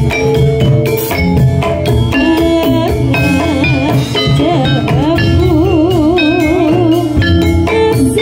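Live Javanese jathilan trance-dance music: a drum beats strokes under held, ringing metallophone notes, while a singer's voice wavers with strong vibrato.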